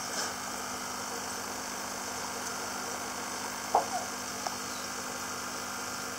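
Steady hum of the tank's pump. A little after halfway come a few short sounds as a hand moves an ornament in the water.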